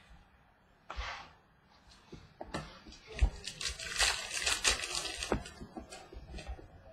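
Trading cards being handled: a short rustle about a second in, then a longer stretch of cards sliding and rustling through the middle, with a few soft taps as cards are set down on the table.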